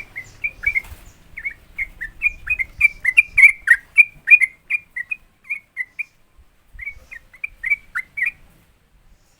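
Yellow-vented bulbul (trucukan) singing a rapid 'ropel' song: a quick run of short, clear whistled notes, about three a second. It pauses briefly about six seconds in, resumes, and stops near the end.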